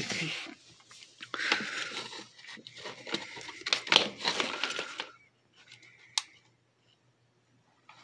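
Rustling and clattering of power cords, plugs and a plastic bag being grabbed and pulled by hand, with small knocks, stopping about five seconds in; a single sharp click follows about a second later.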